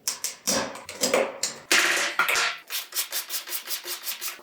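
A hand tool rubbing back and forth over a wall or ceiling surface in short abrasive strokes, hand sanding or scraping the corner. The strokes come about three to four a second in the second half.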